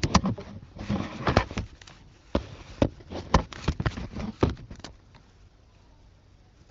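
Slime being handled by hand: an irregular run of short sticky clicks and pops over the first five seconds, then it goes quiet.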